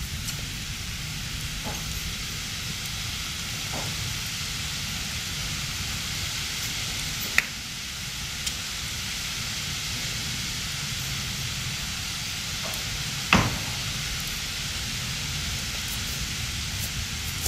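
Steady background hiss of outdoor noise, with a sharp knock about seven seconds in and a louder one about thirteen seconds in.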